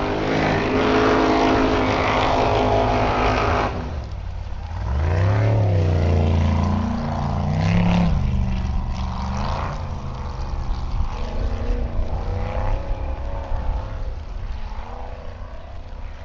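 Formula Offroad buggy's engine running at high revs under the hiss of water spray as it charges through water; the sound drops off abruptly about four seconds in. The engine then revs up and down in several swells as the buggy slides across dry ground, growing quieter toward the end.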